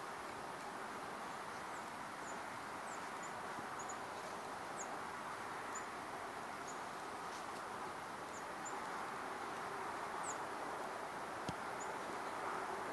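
Quiet woodland ambience: a steady rustle, with small birds giving short, high chips every second or so. One sharp click sounds near the end.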